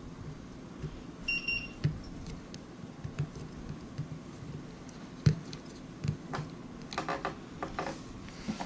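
Small plastic and metal parts of a robot kit being handled, with scattered light clicks and knocks as motor cable connectors are fitted; the sharpest knock comes about five seconds in. A short high beep sounds once about a second in.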